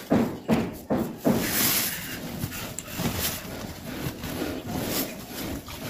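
Woven plastic cement sack rustling and crinkling as it is handled and lifted, with a string of short scrapes and knocks.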